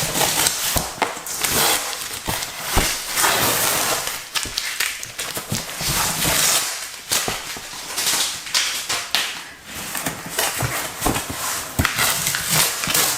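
Paper and cardboard packaging being handled and torn open, with irregular rustling and crinkling broken by small knocks and clicks.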